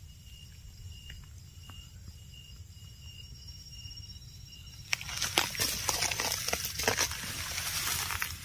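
Insects chirping in a steady, evenly spaced high pulse, about two a second. About five seconds in, loud rustling and crackling of dry leaf litter and twigs begins.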